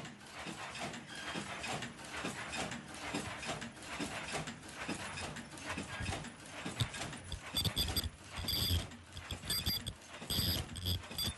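Senfeng FLK120 automatic face mask making machine running: a dense, rhythmic mechanical clatter from its rollers and chain drives. A steady low hum and a higher whine come in about two-thirds of the way through.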